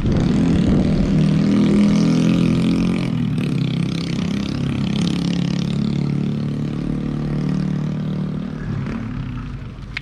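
A motor vehicle's engine running close by. It is loudest about two seconds in and fades gradually as it moves away.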